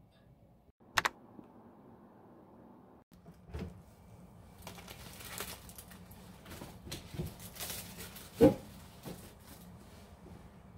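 Groceries being put into a refrigerator's door shelves: irregular clinks and knocks of bottles and cartons set in place, with rustling, and one louder knock late on, over a low hum. A sharp double click comes about a second in.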